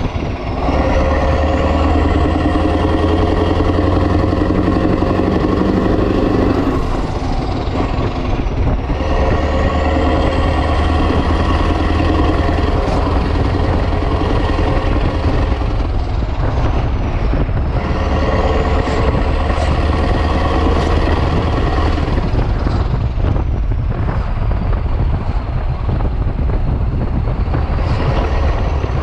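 Renault Magnum's 16.4-litre Mack E9 V8 diesel running with an open exhaust, pulling hard, with a high turbo whistle. The whistle rises for several seconds and falls away three times as the throttle comes off, then starts to climb again near the end.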